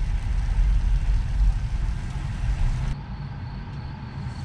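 Low road and tyre rumble inside the cabin of a Tesla, an electric car, driving slowly. About three seconds in it cuts off abruptly to a quieter cabin hum as the car stands still.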